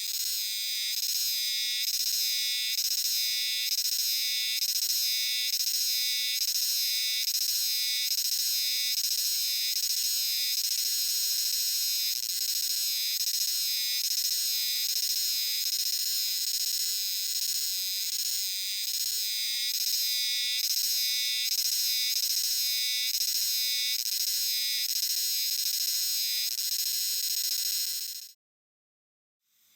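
Himeharuzemi cicadas (Euterpnosia chibensis) singing in chorus: a loud, high, buzzing drone pulsing a few times a second ("jiwa-jiwa-jiwa"). It cuts off abruptly near the end.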